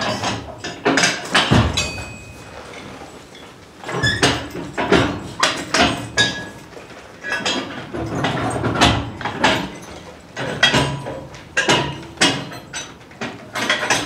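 Metal harness and trace chains clanking and jingling, mixed with hoof thuds and shuffles on the barn floor, as a team of draft horses is hitched up: a long run of irregular knocks and rattles.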